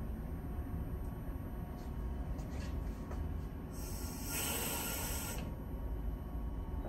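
Steady low rumble inside a stopped Nagasaki Electric Tramway streetcar, with a few faint clicks, then a burst of hissing air about four seconds in that lasts under two seconds, like the tram's air brakes venting.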